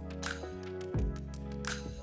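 Background instrumental music: held notes that change every second or so over a light, regular beat.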